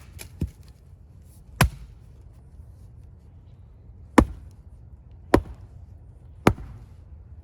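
Axe strikes splitting firewood: four sharp, loud chops into wood spaced a second or more apart, with a fainter knock about half a second in.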